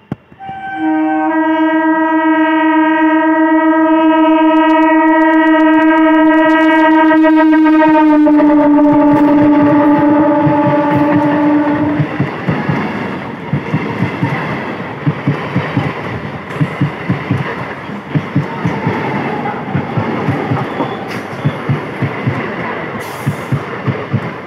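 Indian Railways electric multiple-unit local train sounding a long horn blast of about eleven seconds as it approaches. The horn drops in pitch as the front passes. Then the coaches' wheels clatter in a rapid, steady rhythm over the rail joints as the train runs by.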